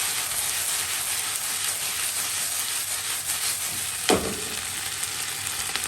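Food sizzling steadily in a hot pan as it is seasoned and stir-fried, with one sharp knock about four seconds in.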